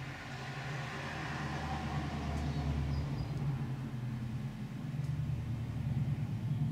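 A heavy engine running steadily, a low rumble that grows gradually louder.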